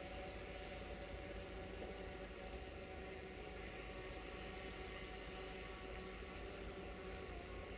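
Quiet outdoor ambience: a steady, high-pitched insect trill with a few brief chirps on it, over a low rumble.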